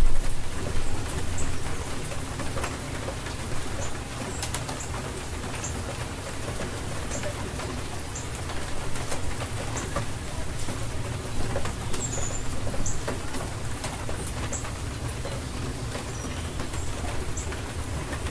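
Steady rain falling, with a low rumble underneath and scattered drip clicks. Short high bird chirps come and go throughout.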